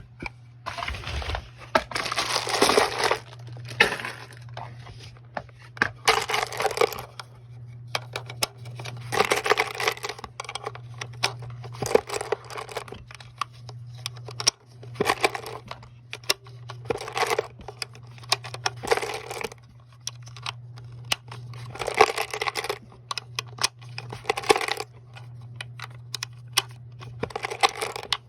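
5.56 cartridges being pressed one at a time into an AR-15 magazine: repeated metallic clicks and short scraping pushes as each round seats under the feed lips, over a steady low hum.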